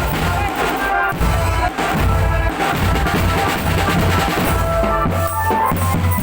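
Marching drum band playing: bass drums beating a steady rhythm with snare drums, and a held melody line over them.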